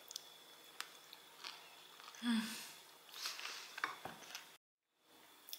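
Faint clicks and short rustling handling noises, broken by a brief moment of dead silence near the end.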